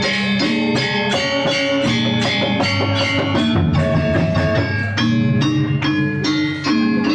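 Balinese gamelan music: metallophones struck in a fast, even beat with ringing tones, with drums underneath.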